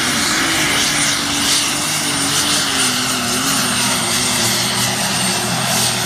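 Competition pulling tractor's engine running loud and steady, its pitch wavering and sagging slightly, with a thin high whine held over it.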